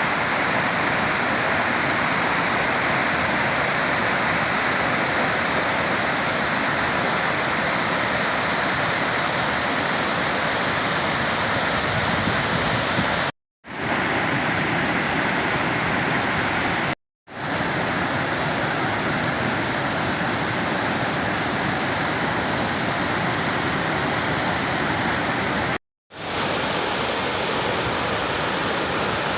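Kuang Si waterfall's cascading water: a loud, steady rush. It cuts out completely for a moment three times where clips are spliced together.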